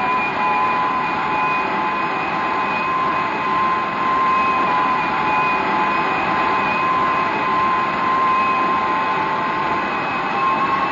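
Early gas turbine jet engine running on test, a steady rushing noise with a high whine that starts to climb in pitch near the end as the engine speeds up.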